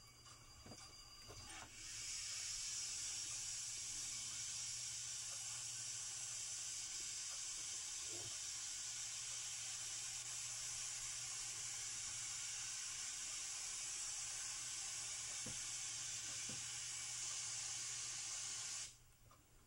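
Norfolk & Western 1218, a Class A 2-6-6-4 articulated steam locomotive, letting off steam in a loud, steady hiss that starts about two seconds in and cuts off suddenly near the end.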